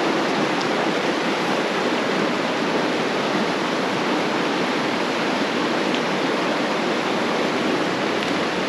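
Creek water rushing steadily over rocks, a constant even roar.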